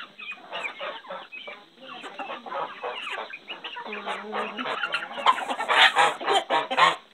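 A flock of domestic chickens clucking continuously, the calls getting louder and busier about five seconds in.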